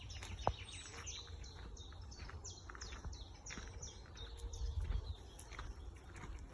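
Songbird singing a run of short, high notes, each sliding downward, repeated quickly, with a single sharp click about half a second in.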